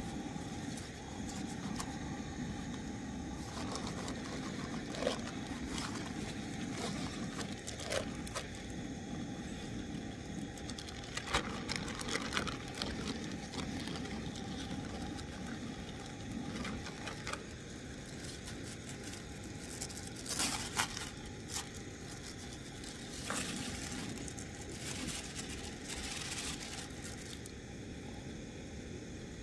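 Crinkling, rustling and scraping of something handled close to the microphone, with scattered sharp clicks and crackles over steady low background noise.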